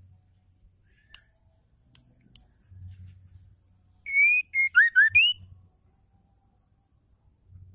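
White-rumped shama (murai batu) singing a short phrase of clear whistled notes about four seconds in, lasting about a second and a half: a held note, then quick notes sliding down and a final note sliding up. A few faint ticks come before it.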